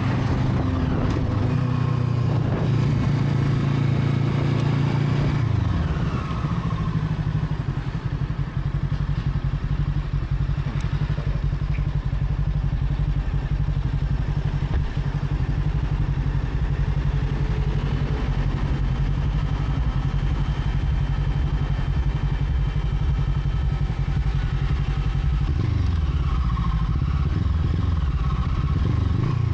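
Brixton Crossfire 500 motorcycle's parallel-twin engine running. The revs drop about six seconds in, it settles into a steady low rumble, and near the end the revs rise and fall again.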